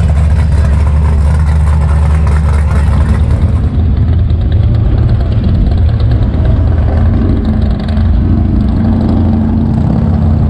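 A car engine running, a steady low sound.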